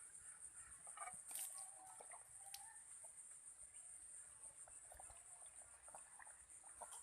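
Near silence: a faint, steady high-pitched drone throughout, with a few faint clicks and soft short sounds.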